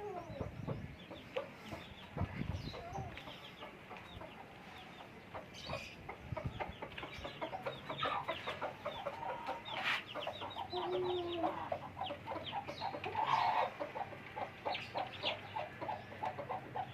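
Aseel chickens at feeding time: chicks peep in a constant stream of short, high, falling cheeps, with lower clucks from the adult birds. A few sharp knocks come through, and there is a louder flurry of clucking about two-thirds of the way in.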